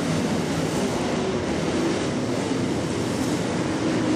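A field of dirt late model race cars running at racing speed, their V8 engines blending into one steady drone.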